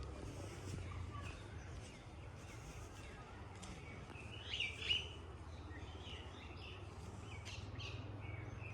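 Birds chirping in short calls, with one louder call a little past the middle, over a steady low rumble.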